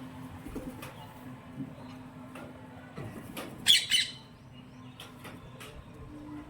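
Pet pigeons and parakeets, with one loud, harsh squawk a little past halfway through, among faint scattered clicks.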